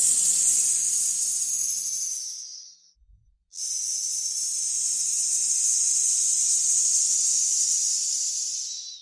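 Snake hissing twice: a hiss of about two and a half seconds that fades away, about a second of silence, then a longer hiss of about five seconds that fades out near the end.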